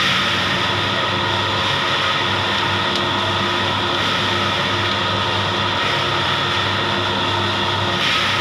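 Copra dryer with automatic stirrer running, a steady mechanical hum and whir with no change, while it discharges the dried copra.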